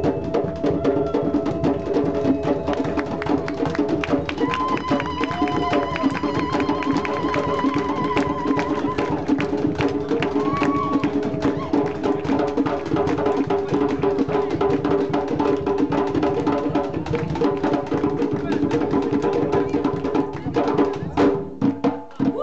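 Gwo ka drumming on hand-played ka drums, the boula drums keeping the steady base rhythm while the makè lead drum plays over them, with dense, fast hand strikes. The drumming briefly breaks off near the end.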